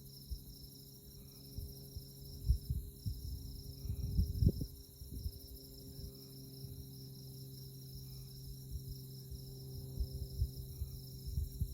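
Night insects chirping in a steady, rapidly pulsing high-pitched chorus, with fainter chirps every couple of seconds. Irregular low rumbles come and go beneath it, strongest about four seconds in.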